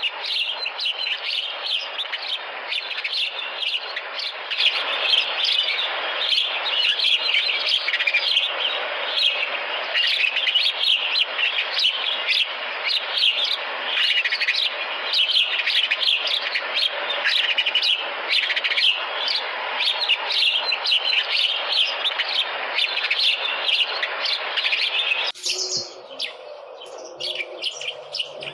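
A flock of house sparrows chirping, many short overlapping chirps at once. Near the end the sound changes abruptly to sparser chirping.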